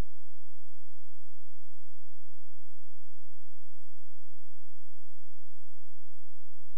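Steady electrical hum: a constant tone that does not change, with no other sound on the track.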